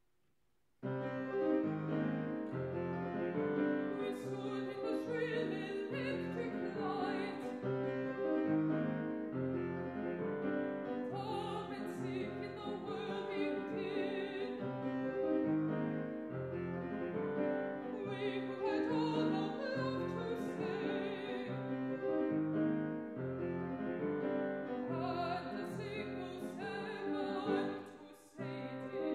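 Mezzo-soprano singing a classical art song with Yamaha grand piano accompaniment, voice and piano starting together about a second in.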